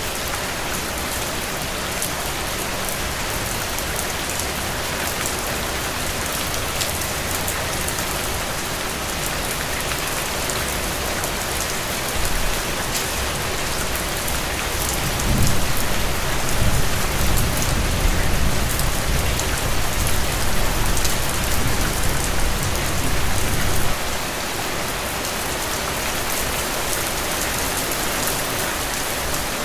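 Heavy, steady rain falling and splashing on soaked ground and puddles, a dense even hiss with fine drop ticks. About halfway through, a low rumble rises under the rain and stops abruptly about three-quarters of the way in.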